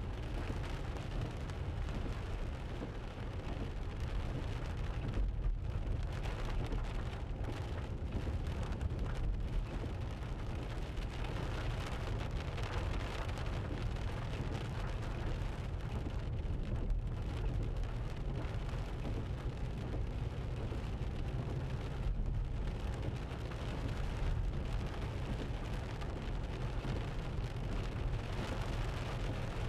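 Steady low rumble of a Land Rover Freelander 2 driving at about 25–30 mph, heard from inside the cabin, with tyre noise from the wet road.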